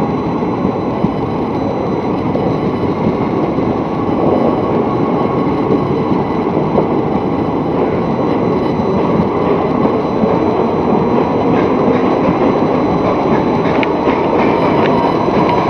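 Passenger express train running past at speed: a steady rumble and rattle of wheels on the rails, with sharper clicks in the last few seconds.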